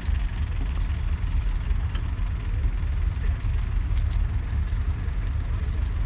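Wind buffeting the microphone: an uneven low rumble throughout, with scattered faint clicks.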